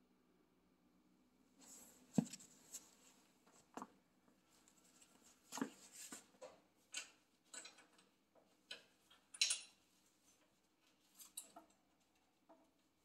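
Faint, irregular clicks and metallic clinks of the tractor's three-point hitch links and pins being handled, starting about two seconds in. A faint steady low hum runs underneath.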